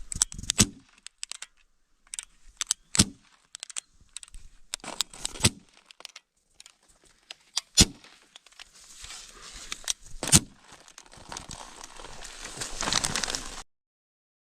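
Thin plastic water bottle crinkling and crackling, broken by several sharp cracks a few seconds apart. The sound cuts off abruptly near the end.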